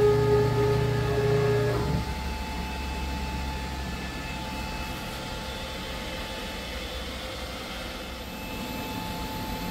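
Laguna SmartShop CNC router running: a steady motor whine over a low hum that cuts off abruptly about two seconds in, leaving a quieter steady mechanical hum.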